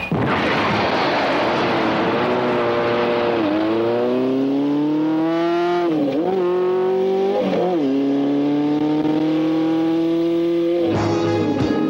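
Motorcycle engine accelerating hard, its pitch climbing steadily and dipping twice as it shifts up through the gears, then holding at speed. A loud rushing noise fades out under it over the first few seconds.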